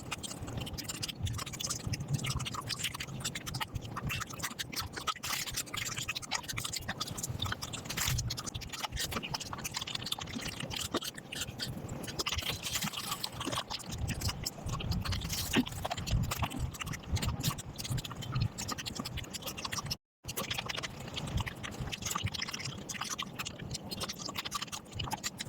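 Close-miked eating sounds played back at five times speed: a dense, rapid run of mouth smacks and chewing clicks. The sound cuts out completely for a moment about twenty seconds in.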